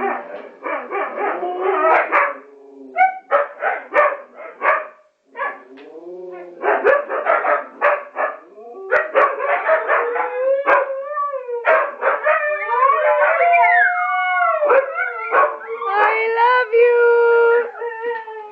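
Several huskies barking and yipping in quick bursts, then, from about ten seconds in, breaking into long overlapping howls whose pitches slide up and down.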